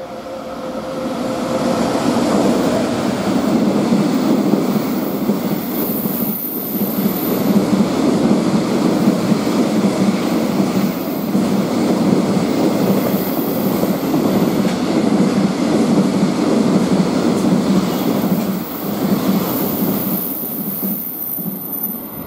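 Container freight train passing at speed. A steady whine as it approaches, then a loud rumble with rhythmic clatter and some squeal from the wheels as the long string of container wagons runs by, easing off near the end.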